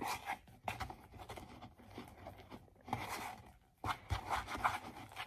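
Glue, shaving cream and contact-solution slime being stirred with a wooden craft stick in a plastic bowl: a run of irregular scraping, sticky strokes as the slime starts to form.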